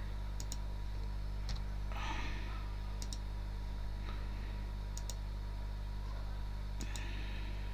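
About five computer mouse clicks spread out, each a quick double tick of press and release, over a steady low electrical hum.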